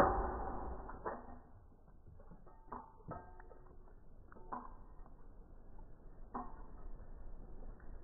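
A shot from a Colt 1911 airsoft pistol into a plastic bottle of water: a sharp loud hit right at the start that fades over about a second. A few faint scattered knocks and clicks follow.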